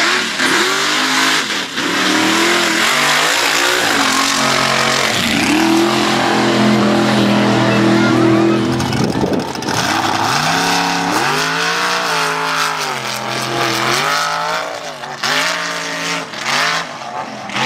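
Mud-racing truck engines revving hard, the pitch climbing and dropping with the throttle; the engine holds steady at high revs for about three seconds midway, then revs up and down again several times.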